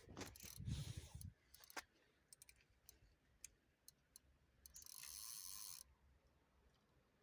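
Near silence with faint scattered clicks, a low rumble in the first second or so, and a brief hiss lasting about a second near the five-second mark.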